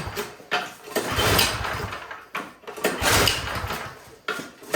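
Recoil starter cord of a 24-inch Troy-Bilt snowblower being pulled over and over, about every two seconds, the engine cranking on full choke without catching. It will not fire because of a wet, fouled spark plug giving no spark.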